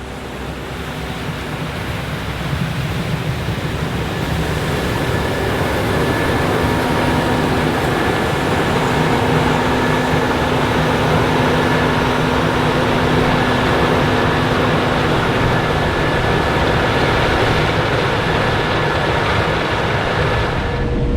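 Case IH 7130 Axial-Flow combine with its 8.7-litre FPT diesel harvesting corn: a dense, steady mechanical noise from the engine, rotor and corn head, growing louder over the first few seconds and then holding steady.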